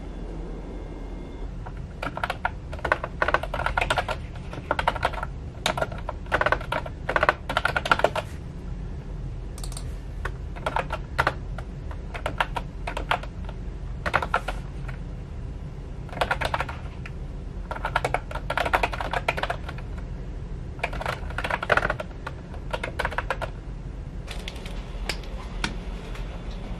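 Typing on a computer keyboard with round, typewriter-style keycaps: runs of quick key clicks lasting a few seconds each, with short pauses between, over a steady low hum.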